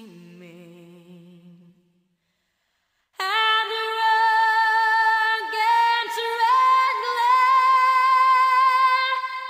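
Soundtrack music: the last low notes of one piece fade out, there is about a second of silence, and a little over three seconds in a new piece starts with a woman's voice singing long, held notes.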